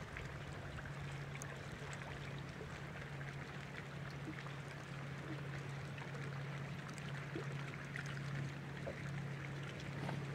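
Small waves lapping and trickling against a fibreglass bass boat's hull, over the steady low hum of the bow-mounted electric trolling motor.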